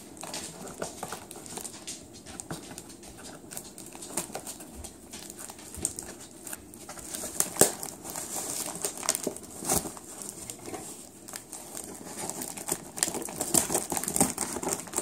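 A cardboard shipping box being opened by hand: cardboard and packing tape rustling and crinkling, with scattered clicks and scissor cuts. The handling grows busier and louder near the end, as the scissors cut into the top of the box.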